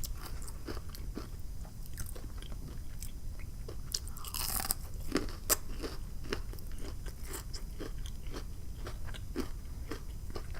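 Close-miked chewing of crunchy fried battered butterfly shrimp: a steady run of small, irregular crunches, with a louder crunchy burst about four and a half seconds in.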